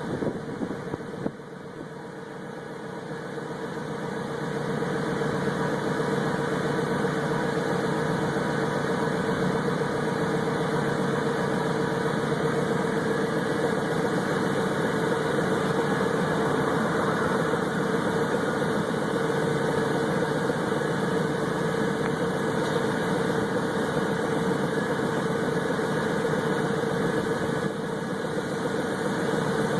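Ford truck engine idling steadily, an engine with a blown head gasket. A few sharp knocks sound just after the start, and the engine grows louder over the first few seconds, then holds steady.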